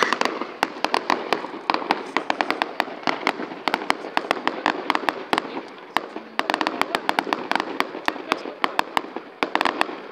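Aerial fireworks display: a rapid, continuous run of sharp bangs and crackles from bursting shells, several a second, with denser volleys about six and a half and nine and a half seconds in.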